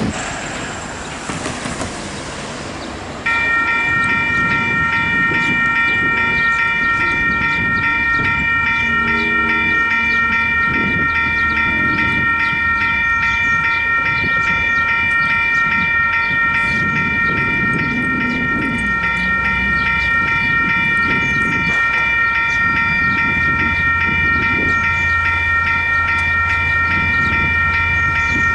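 Western Cullen Hayes electronic level-crossing bells start ringing about three seconds in, a fast, even ding that keeps going, the sign that the crossing has been triggered by an approaching train. A low rumble builds under the bells in the last few seconds.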